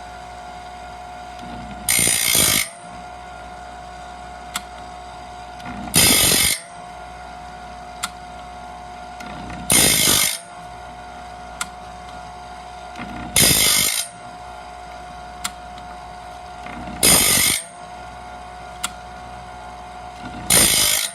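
Small diamond-wheel blade sharpener's motor running steadily while the 4-inch diamond wheel grinds the teeth of a wide bandsaw blade one at a time. There are six short grinding passes, about one every four seconds, and the motor dips in pitch under each. A light click comes between passes as the blade is moved on to the next tooth.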